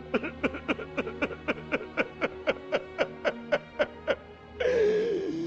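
A man sobbing in quick, rhythmic gasps, about four a second, then breaking into a louder drawn-out wavering wail near the end, over soft background music.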